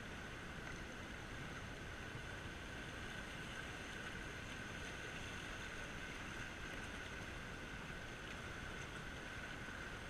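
Steady rushing of whitewater in a river rapid around a moving kayak, an even hiss of water with no distinct splashes.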